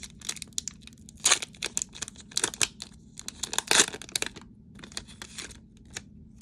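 Foil wrapper of a Pokémon TCG booster pack being torn open and crinkled by hand: a run of sharp crackles and rips, loudest about a second in and again near four seconds.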